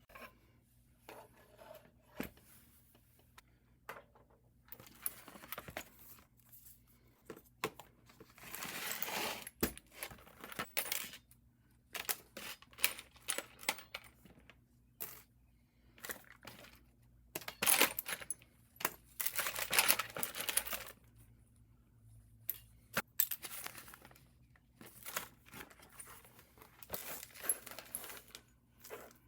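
Small hard parts clinking and rattling as they are handled, in irregular bursts of clicks, with a few longer stretches of rustling or scraping.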